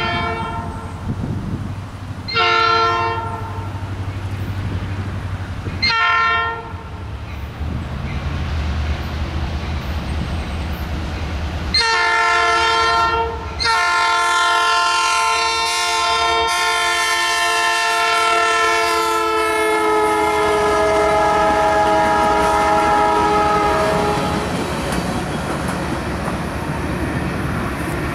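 Norfolk Southern diesel freight locomotive sounding its multi-chime air horn: three short blasts over the low rumble of its engine, then a long blast held for about ten seconds that drops in pitch as the locomotive passes. The rolling noise of the train's cars follows near the end.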